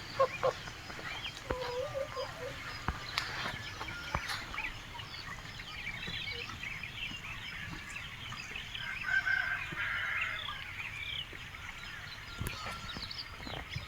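Domestic fowl clucking and calling, with a few sharp knocks scattered through.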